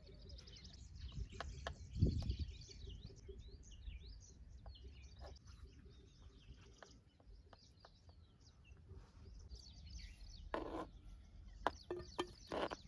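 Small birds chirping over a low wind rumble on the microphone, with scattered light taps of a knife on a cutting board as a block of paneer is cut, one stronger knock about two seconds in.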